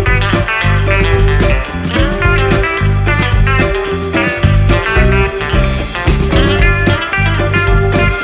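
Background music: a blues-rock track led by guitar, with a steady beat and a bass line.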